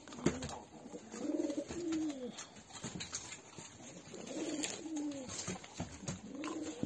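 A dog whining in low, rising-and-falling moans, repeated every second or two, while it begs for a treat. A few sharp clicks are heard between the moans.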